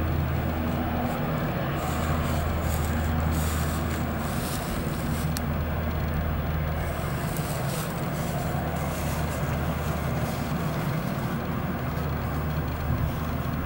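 Saab JAS 39 Gripen's jet engine at full takeoff power, a steady loud rush with a low hum and some crackle, as the fighter rolls down the runway and away on afterburner.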